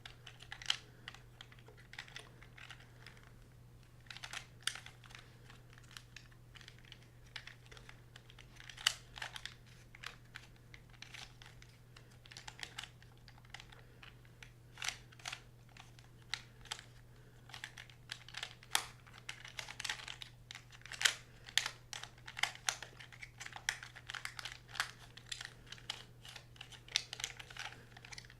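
Pyraminx puzzle being turned fast by hand: quick, irregular runs of plastic clicks and clacks as its pieces twist.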